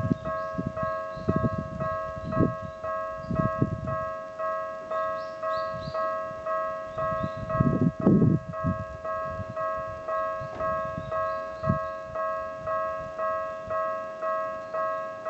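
Japanese railway level-crossing warning alarms, two at this crossing, ringing their steady electronic kan-kan bell at about one and a half to two strikes a second. Low rumbling thumps come and go under the bells in the first few seconds and are loudest about eight seconds in.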